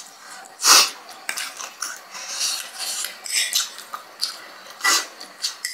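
Metal fork scraping and clinking against a foil tray and a small bowl while noodles are gathered, with two louder scraping strokes, one about a second in and one near the end.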